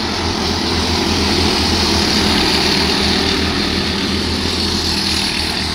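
Racing karts' engines running at speed as the pack goes past, a steady buzz that grows a little louder in the middle and eases off toward the end.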